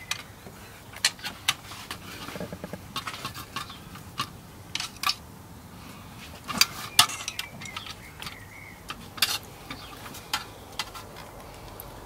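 Irregular metallic clinks and taps of hand tools and loose parts working on the timing-chain end of a 2.0 TFSI engine, a few sharper knocks bunched about halfway through.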